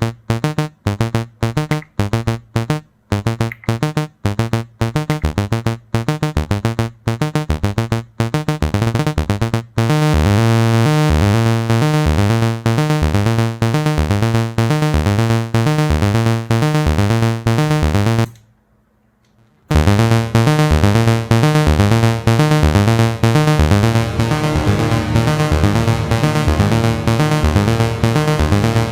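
Behringer Crave analog monosynth playing a step-sequenced, low-pitched arpeggio riff from its single oscillator. The first third is short, detached notes. Then the pattern turns continuous and brighter, stops for about a second past the middle, and starts again.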